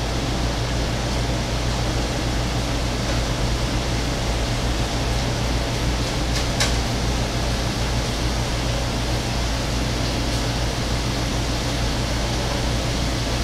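Thin slices of Korean beef brisket sizzling steadily in a frying pan over high heat, with a low steady hum underneath. Tongs click once against the pan about six and a half seconds in.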